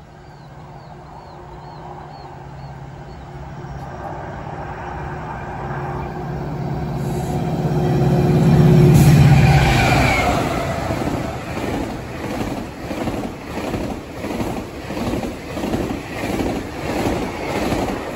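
MotivePower MP40 diesel locomotive approaching and passing close by. Its engine drone builds to its loudest as it passes, about nine seconds in. Then its bilevel passenger coaches roll past with a rhythmic clatter of wheels, about once a second.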